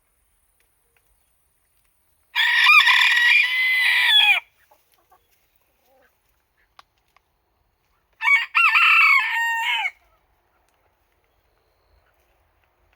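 Japanese bantam (chabo) rooster crowing twice: a crow of about two seconds a couple of seconds in, then a shorter crow of under two seconds about eight seconds in, each ending in a falling note.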